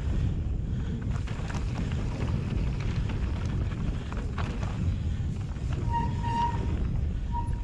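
Mountain bike rolling down a packed-dirt trail, heard from a helmet camera: a steady low rumble of tyres and wind on the microphone, with scattered clicks and rattles from the bike. A short squeal sounds twice near the end.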